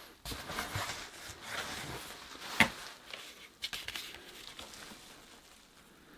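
Paper and cardboard packaging rustling and being handled as a framed painting is unwrapped and lifted out, with a sharp tap about two and a half seconds in. The handling dies away near the end.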